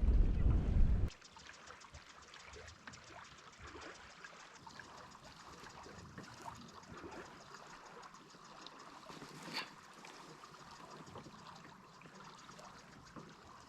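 Wind buffeting the microphone for about a second, cutting off suddenly. Then faint water trickling with light ticking, one tick a little louder past the middle.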